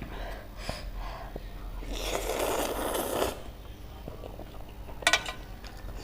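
Close-miked mouth and breathing sounds of a person eating spicy ramen noodles, with small wet clicks. About two seconds in comes a noisy rushing sound lasting just over a second, and a sharp click comes near the end.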